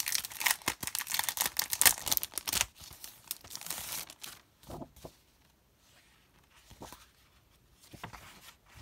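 Clear plastic cellophane sleeve crinkling and rustling as it is opened and handled, dense for the first four seconds, then a few short, quieter rustles of plastic and paper.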